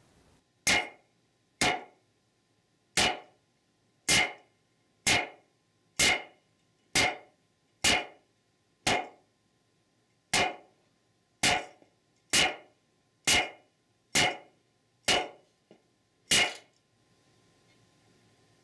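About sixteen sharp knocks, roughly one a second, as a Ford E4OD/4R100 aluminium valve body casting and a wooden block are struck together. The blows are meant to jar a stubborn accumulator valve out of its bore.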